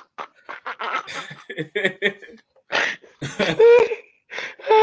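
Men laughing hard: short breathy bursts at first, then louder, higher-pitched laughs from about three seconds in.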